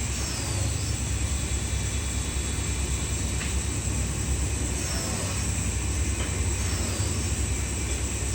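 Steady low mechanical rumble and hum, unchanging throughout.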